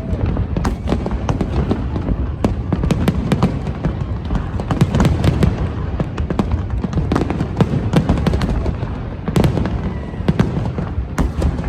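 Fireworks going off: many sharp cracks and pops in quick succession over a continuous low rumble of booms.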